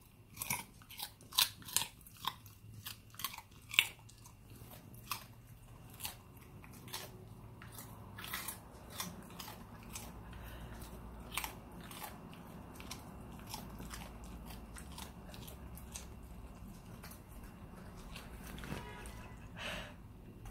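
A dog crunching and chewing a raw carrot: sharp crunches come quickly for the first several seconds, then thin out to occasional bites.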